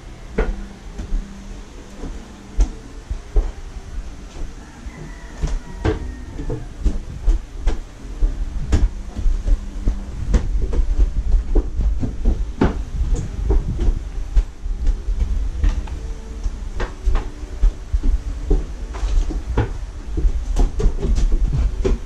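Irregular knocks, thumps and rustling from a plastic laundry basket being swung about and a person moving quickly around a small room, over a heavy low rumble of the camera being jostled. It grows louder about ten seconds in.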